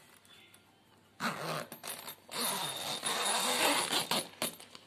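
The zipper of a padded nylon guitar gig bag being pulled open: after a quiet second, a long scraping zip with short breaks as it runs round the case.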